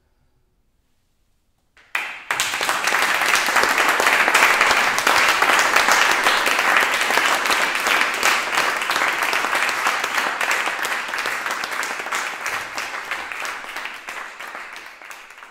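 Audience applauding after about two seconds of silence following the last note, the clapping steady and then slowly dying away near the end.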